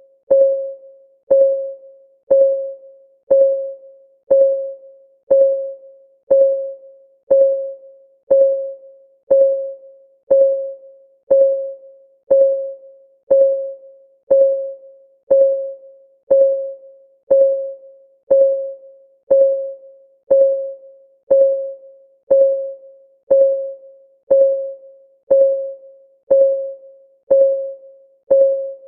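Countdown timer's ticking sound: one tick a second, each a short pitched ping that fades quickly, keeping an even beat.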